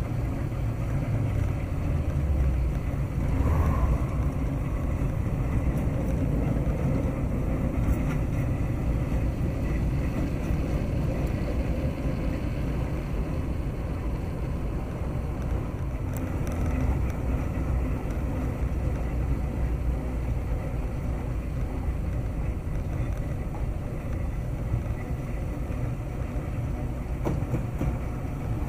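Steady low rumble of a moving diesel train, the NS 600-class shunting locomotive hauling its carriages, mixed with the running noise of the vehicle pacing it along the road.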